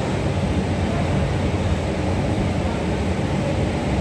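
Indian Railways express passenger coaches rolling past at close range: a steady running noise of steel wheels on the rails.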